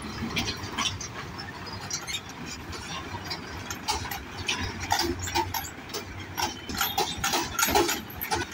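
Road traffic crossing a railway level crossing: a van and a lorry driving over the tracks with engine rumble and irregular knocks and clatters, busier in the second half and loudest near the end as the lorry crosses.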